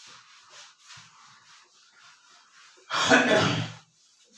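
A duster wiped across a whiteboard in quick, faint, repeated swishing strokes, erasing marker writing. About three seconds in comes a single loud cough from the man.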